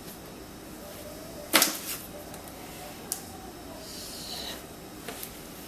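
Engine parts being handled: one sharp metallic clink about a second and a half in, then a few lighter clicks and a faint brief ring.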